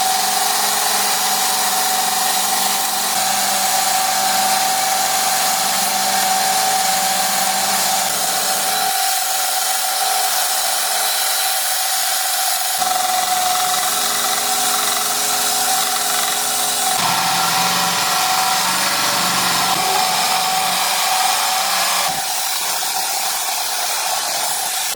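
An electric power tool runs with a steady whine over a wide hiss, as when metal is ground or sanded. Its sound shifts abruptly several times.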